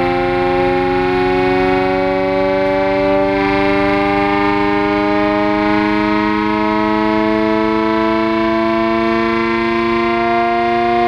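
Vintage WWII air-raid siren sounding loudly as a chord of several tones, its pitch climbing slowly and steadily.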